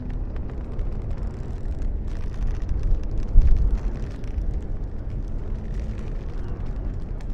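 Low, rumbling wind noise gusting, swelling to its loudest about three and a half seconds in, with faint clicks and ticks over it.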